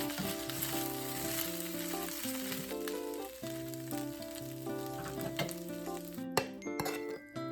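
Food sizzling in a hot frying pan, with background music playing over it. The sizzle cuts off about six seconds in, followed by a few sharp clicks.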